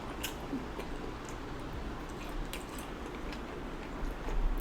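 Close-up wet, squishy chewing of sauce-soaked seafood, with a few faint smacks and a louder burst of mouth noise near the end.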